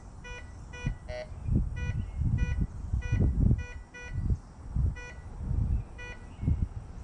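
Ricomax metal detector giving short, buzzy target beeps, roughly two a second and uneven, with one tone of a different pitch about a second in. It is responding to a Civil War bullet held about three inches from the search coil. A louder low rumbling noise swells underneath.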